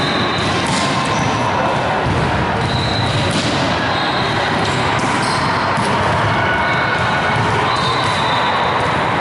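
Volleyballs being hit and bouncing on a hardwood gym floor, several separate thumps, with short high sneaker squeaks over a steady, echoing gym din.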